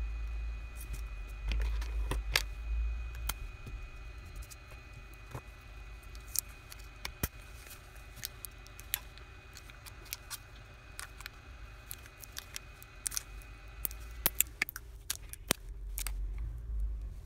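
Irregular sharp clicks and taps of plastic pry tools working against an opened OnePlus 3T's frame and battery, with a quick flurry of clicks near the end.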